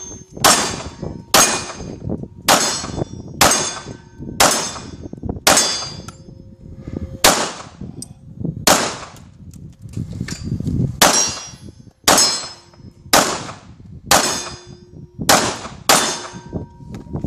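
Semi-automatic pistol fired slow and steady, about fifteen shots roughly a second apart. Each shot has a short fading tail, and several are followed by a brief steady ring.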